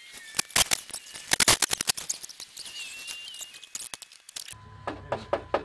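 Irregular clicks, taps and faint squeaks of hands working a plastic headlight housing into a pickup truck's front end. A little over four seconds in, the sound changes abruptly to an even, fast knocking, about four or five knocks a second, over a low hum.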